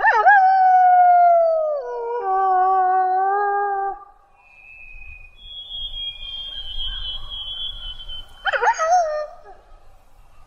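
Wolf howl sound effect presented as the extinct Hokkaido (Ezo) wolf: a loud howl that starts high and slides down in pitch over about four seconds. Fainter high, thin calls follow, then a short sharp yelp near the end.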